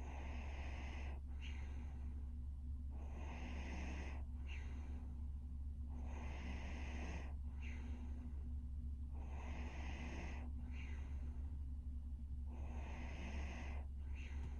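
A sleeping young woman breathing heavily in light snores, about one slow breath every three seconds, five in all, each ending in a brief sharper catch. A steady low hum runs underneath.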